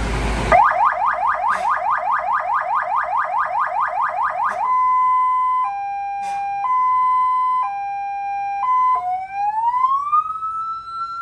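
Electronic vehicle siren cycling through its tones after a brief rush of noise. It starts with a fast yelp of rising sweeps, about five a second; from about five seconds in it switches to a two-tone hi-lo, each note held about a second; and near the end a slow wail climbs and holds.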